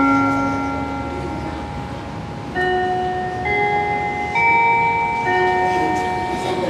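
Slow bell-like music: long, ringing chime notes, a new one struck about every second after a pause early on.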